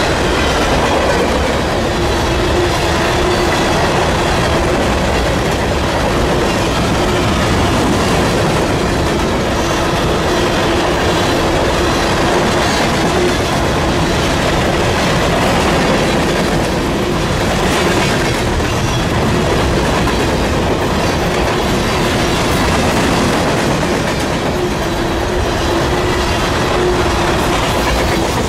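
Covered hopper cars of a freight train rolling past at high speed: a loud, steady rumble and rattle of steel wheels on rail, with a steady humming tone running through much of it.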